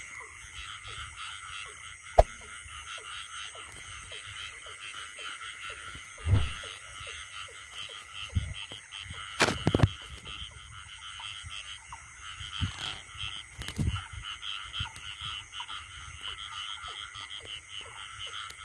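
A dense chorus of many frogs calling together, a steady pulsing drone. A few louder thumps and rustles sound close by, the loudest about nine and a half seconds in.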